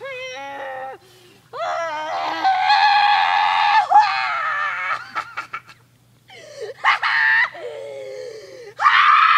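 A teenage boy screaming a series of long, loud, wordless yells. There are a few short sharp clicks about halfway through.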